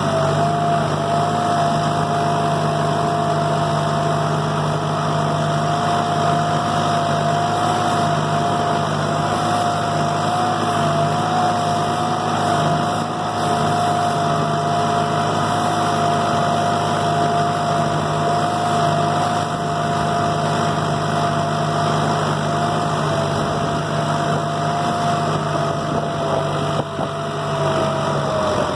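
Kubota compact diesel tractor running steadily as it drives, heard from the operator's seat: a steady engine hum with a high whine over it. Near the end the whine drops slightly in pitch and the hum eases.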